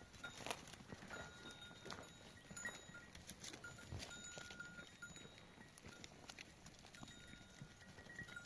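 Faint, intermittent tinkling of a livestock bell, with scattered hoof clicks as a flock of sheep and goats moves.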